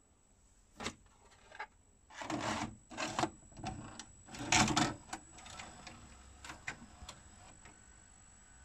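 VHS cassette pushed into a Panasonic NV-HD675 VCR and drawn in by its front-loading mechanism: a click, then clunks and bursts of motor whirring, loudest about halfway through. After that the deck runs with a faint steady hum.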